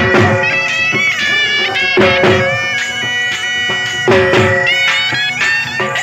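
A been (a reed pipe with a drone) playing a Jhumar dance melody in held, stepping notes over its steady drone, accompanied by a dhol drum. The dhol beats a steady rhythm, with a heavy stroke about every two seconds.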